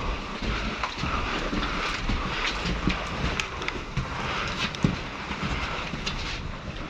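Rustling and wind noise on the microphone, with scattered light clicks and knocks and one sharper knock about two-thirds of the way through.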